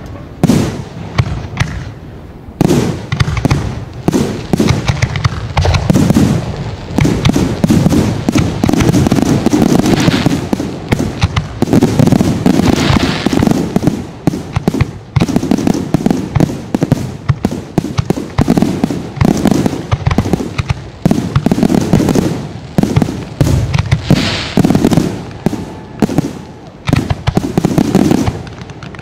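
Fireworks display in a rapid, continuous barrage of aerial shell bursts, many bangs a second with no pause.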